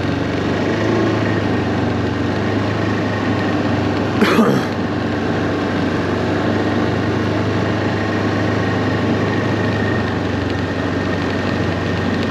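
BRP Tundra 600 ACE LT snowmobile's four-stroke twin-cylinder engine running at a steady, even pace while the sled moves along a snowy trail, with one brief rushing burst about four seconds in.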